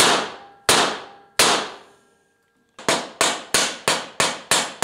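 Hand hammer striking steel rivets through flat steel bar, backed on a solid steel block, to set the rivet heads. There are three heavy blows about two-thirds of a second apart, each with a short metallic ring, then a pause of about a second, then quicker blows about three a second.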